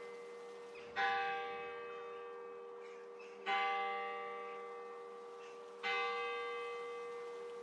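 A bell tolling slowly: three strokes about two and a half seconds apart, each ringing on and fading away before the next.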